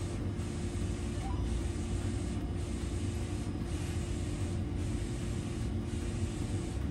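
McLaud MP2400 wide-format DTF printer printing: a steady mechanical whir and hum from the print-head carriage running back and forth, dipping briefly about once a second as each pass ends.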